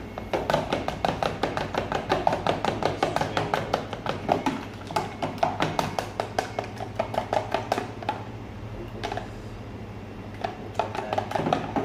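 Egg and cream batter being beaten by hand in a plastic tub, the utensil clicking rapidly against the tub's sides at about five strokes a second. The beating stops for a couple of seconds and starts again briefly near the end.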